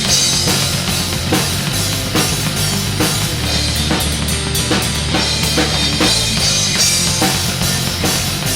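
Black metal music: a dense, loud band sound with a drum kit keeping a steady beat over sustained low bass notes.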